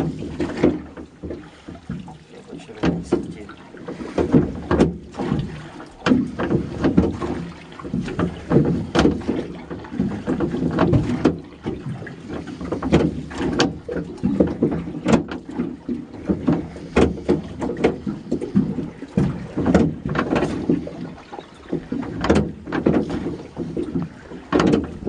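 Gill net being hauled by hand into a metal boat: irregular knocks, thuds and rattles against the hull as the net and catch come aboard.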